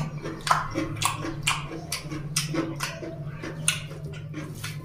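Close-up wet chewing and lip-smacking of a mouthful of rice and oily mutton curry, with a sharp smack about every half second over a steady low hum.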